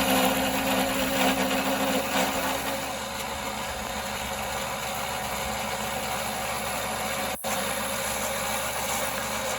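A 1939 Pow-R-Kraft wood lathe spinning under its belt-driven electric motor, a steady running hum. The hum's tone drops away about three seconds in, and the sound cuts out for an instant about seven seconds in.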